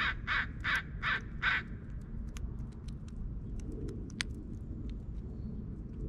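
A crow cawing five times in quick succession, followed by scattered sharp ticks, over a steady low rumble.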